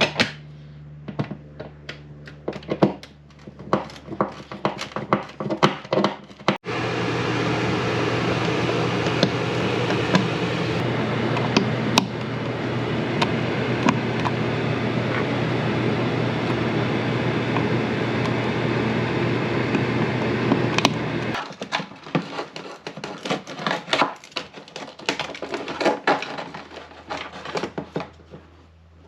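Scattered light clicks and knocks, then a steady machine noise that starts suddenly about six seconds in, runs evenly for about fifteen seconds and cuts off suddenly, followed by more clicks and knocks.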